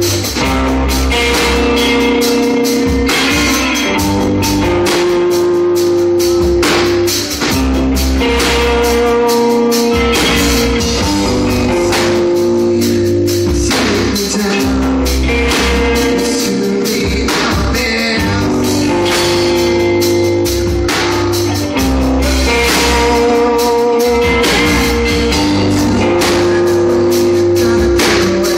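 Live rock band playing loudly on electric guitars and drum kit, a chord pattern repeating about every four seconds over a steady beat.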